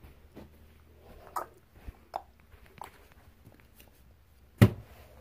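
Handling noise as a phone is moved about: scattered small clicks and rustles, and one sharp knock about four and a half seconds in, over a faint steady low hum.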